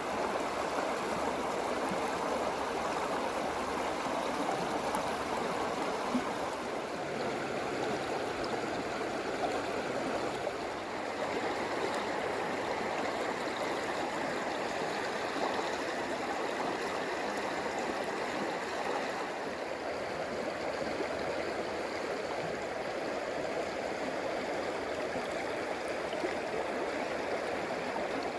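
Flowing stream: a steady rush of water.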